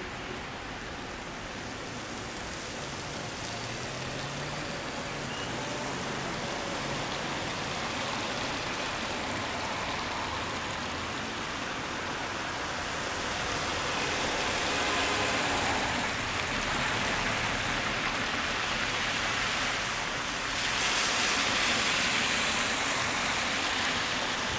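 Steady rain on a street, with the hiss of car tyres on the wet road swelling as vehicles pass, most clearly about two-thirds of the way through and again near the end.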